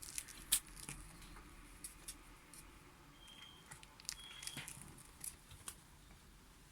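Pet rat making faint, irregular small clicks and light scratching, with two brief faint high peeps about three and four seconds in.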